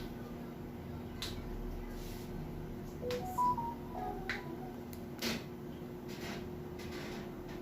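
A short run of electronic beeps at several different pitches, a bit like phone key tones, about three seconds in. Scattered sharp clicks come through, over a steady low hum.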